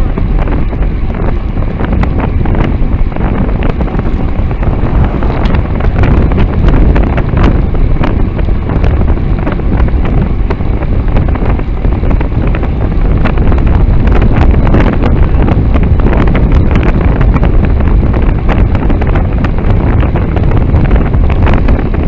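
Wind buffeting the microphone of a bicycle-mounted camera on a road bike ridden at speed. It makes a loud, steady low rumble, with frequent small clicks and knocks throughout.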